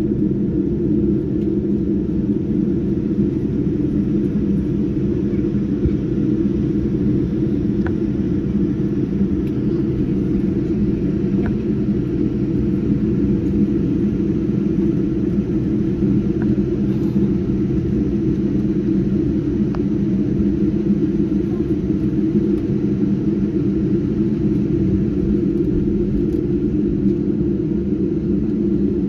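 Steady low cabin rumble inside a Boeing 787-9 rolling along the taxiway after landing: engines at idle with the hum and drone of the airframe and wheels, and a few faint ticks.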